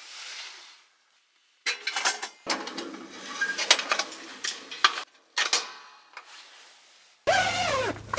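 Metal clicks and rattles of a Paseco kerosene heater being handled just after lighting, its wick-control knob being turned. Music comes in near the end.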